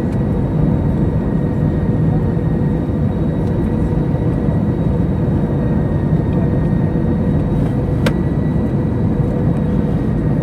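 Steady cabin noise of an Airbus A321 airliner in flight: a low rumble of jet engines and rushing air with a faint steady whine. A single short click comes about eight seconds in.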